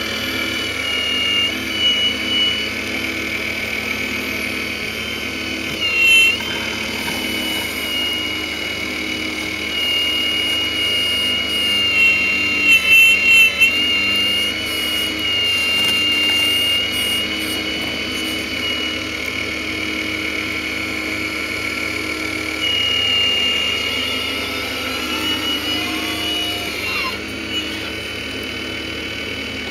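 Radio-controlled scale Hitachi Zaxis 870LCH hydraulic excavator: a steady high whine from its hydraulic pump as the boom, arm and bucket dig. The pitch steps up and down as the controls are worked, with brief louder swells.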